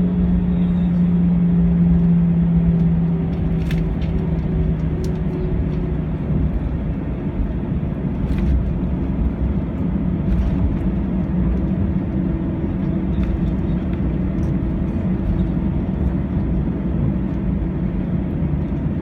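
Airbus A321 cabin noise while taxiing: the engines at idle thrust and the cabin air make a steady low rumble. A strong hum sinks slightly in pitch and fades out about six seconds in, and a few faint clicks or knocks come through the cabin.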